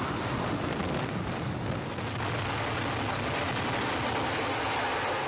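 F-35C fighter's jet engine at full thrust for a carrier catapult launch: a steady, loud rushing noise.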